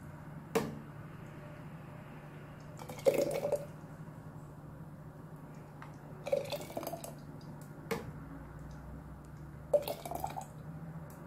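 Thick, hot tomato sauce being ladled from a pot into a glass jar: the ladle knocks and scrapes against the pot and the sauce plops and drips into the jar, in short bursts every few seconds. A low steady hum runs underneath.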